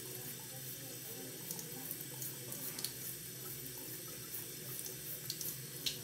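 Bathroom sink tap left running in a steady stream, with a few faint ticks over it.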